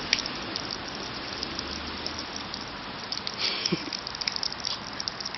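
Rain falling on wet pavement and puddles: a steady hiss with many small pattering splashes.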